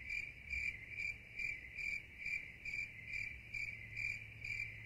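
A cricket chirping in an even rhythm, about two to three pulses a second, over a faint low steady hum.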